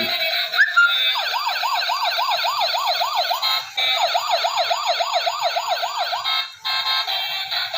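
A toy police car's electronic siren plays from its small built-in speaker as a fast warbling wail, about four rises and falls a second. It breaks off briefly near the middle, then switches back to the toy's electronic music near the end.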